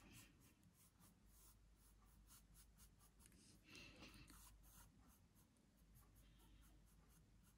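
Near silence with faint, scratchy strokes of a large flat brush laying oil paint onto cotton canvas, a little louder about four seconds in.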